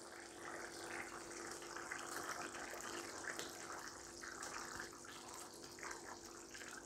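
Beef curry gravy faintly bubbling as it simmers on a low flame in an open pan, stirred with a wooden spatula partway through.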